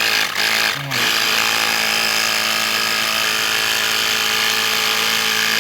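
Small portable electric tyre pump running steadily while inflating a drained motorcycle front tyre, dipping briefly under a second in.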